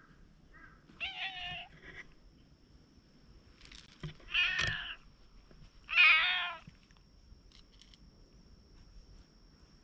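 Stray domestic cat meowing as it approaches: three clear meows, about a second in, about four and a half seconds in and the loudest about six seconds in, with a couple of short, softer calls between.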